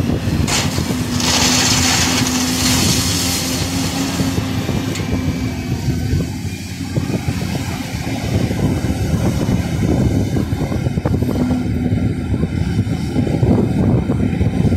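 Volvo EC350DL excavator running with a steady low engine and hydraulic hum. About half a second in, a bucketload of crushed stone pours into a dump truck's bed with a rushing rattle lasting a few seconds; then the machine works on as it swings back and digs into the stone pile.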